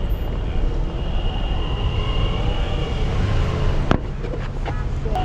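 Electric skateboard rolling over city street asphalt: a steady low rumble mixed with traffic noise, with one sharp click about four seconds in.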